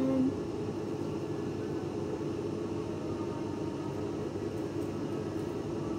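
Steady whirring of a fan running, with a faint low hum.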